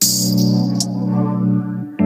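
Background music: held chords that begin abruptly, with a bright high shimmer at the start and a change of chord near the end.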